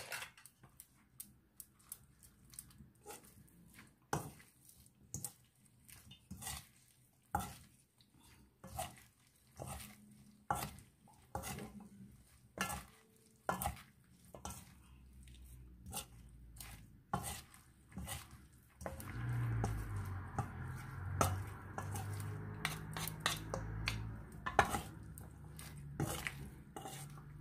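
Fork and wooden spatula clinking and scraping against a stainless steel mixing bowl as a batter of shredded vegetables and egg is tossed and stirred, in irregular clinks. About two-thirds of the way in the stirring becomes denser and louder.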